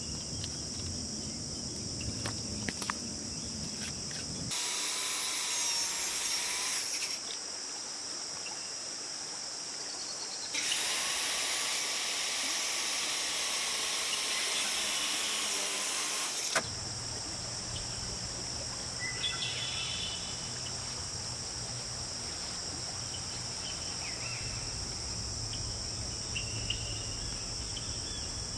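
Cordless circular saw cutting a pressure-treated lumber stair stringer in two runs, a short one of about two seconds and then a longer one of about six, its motor whining at a steady pitch. A steady chorus of crickets is heard throughout, and light pencil scratches on the board are heard near the start.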